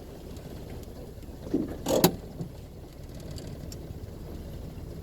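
Land Rover Series II 2.25-litre four-cylinder petrol engine idling steadily while the truck stands on a hill, with one short clunk about two seconds in.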